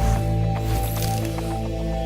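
Music with held notes and a light ticking beat.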